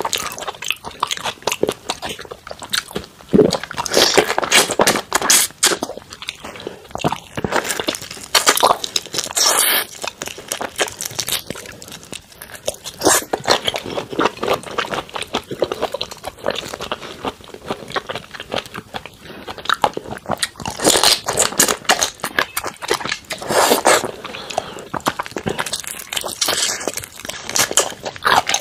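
Close-miked crackling of a cooked prawn's shell being pulled apart and peeled, with crunchy biting and chewing of the prawn, in repeated loud clusters of clicks.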